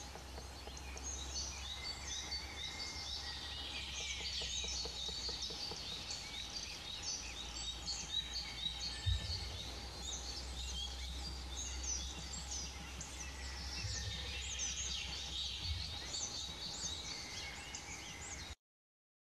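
Many small songbirds singing and calling at once, a dense chorus of short chirps and trills, over a steady low rumble with a few soft thumps, the strongest about nine seconds in.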